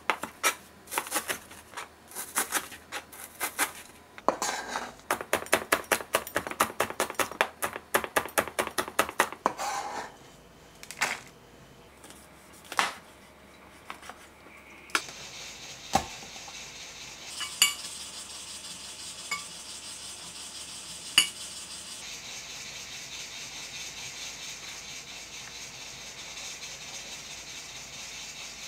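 Kitchen utensils clinking against dishes in quick, rapid strokes for about the first ten seconds, then a few separate clinks. A steady hiss starts about halfway through and grows louder near the two-thirds mark.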